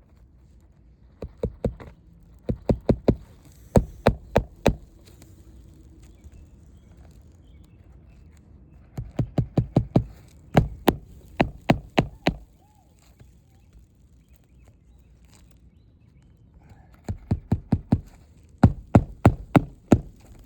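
Hammer driving roofing nails to fasten a new asphalt shingle, in quick runs of sharp strikes, several blows per nail, with short pauses between nails.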